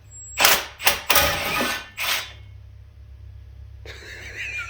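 Cordless Milwaukee impact wrench hammering in four short bursts, loosening the exhaust manifold bolts on a 1979 Chevy truck engine.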